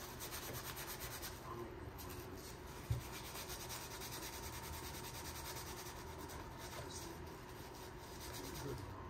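A cloth scrubbing a small plastic car interior trim piece in repeated rubbing strokes, with a single dull thump about three seconds in.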